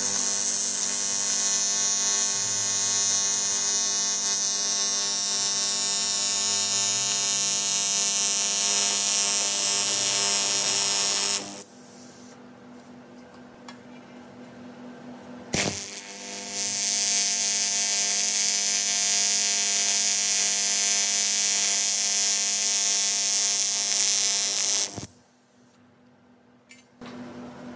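AC TIG welding arc on aluminium pipe, a steady electric buzz with a high hiss. It stops about 11 seconds in, starts again with a click a few seconds later, and runs until shortly before the end.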